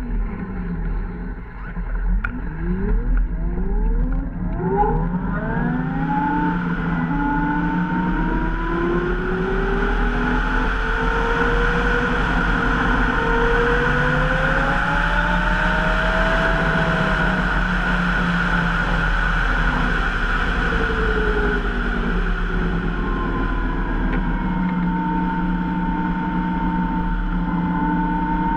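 Zero SR electric motorcycle pulling away and accelerating: its electric drive whine climbs steeply in pitch over the first few seconds, then holds as a steady whine that drifts gently up and down with speed, under a constant rush of wind and road noise.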